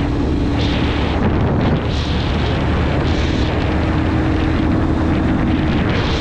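Spark SP200R-28 200 cc four-stroke motorcycle running at a steady road speed, picked up by the camera's own microphone, with a loud, continuous wind rumble over the engine.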